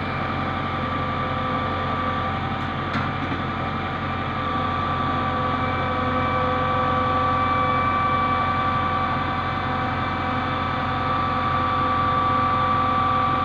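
JCB 3DX backhoe loader's diesel engine running steadily with a constant whine over it as the backhoe arm works, swelling slightly a few times, with a brief click about three seconds in.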